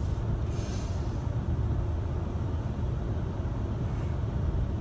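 Steady low rumble of a car cabin, with no speech or music over it.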